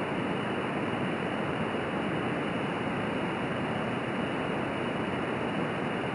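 Steady rushing hiss of a small pressurized alcohol stove burning methanol (HEET), its flames heating a stainless steel mug of water toward the boil.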